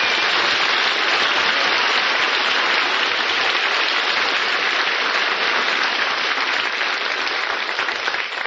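Studio audience applauding after a song, starting to die down near the end.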